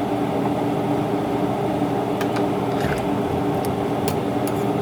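A steady mechanical hum from a small motor, with a few faint light clicks from about two seconds in.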